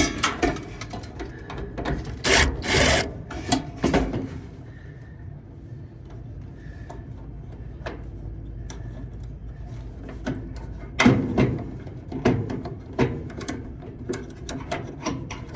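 Plastic clicks, knocks and rubbing from hands and a tool working the belt-switch wiring plug loose inside a Samsung dryer. The clicks come in clusters at the start and again later, with a quieter stretch between.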